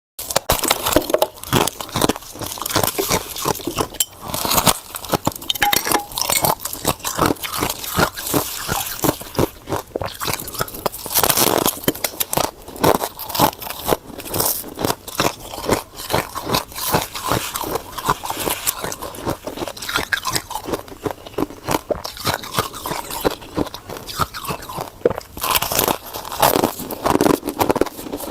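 Freezer frost being bitten and chewed, dense irregular crunching and crackling throughout.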